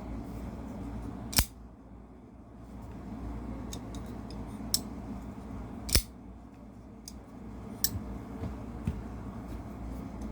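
Asher Douglas folding knife being worked open and shut, giving a handful of sharp metallic clicks spaced a few seconds apart, two of them louder, over a low steady hum.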